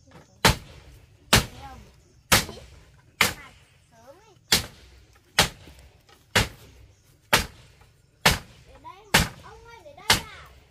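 Steady blows of a hand tool striking, about one a second, eleven in all, each sharp and ringing briefly.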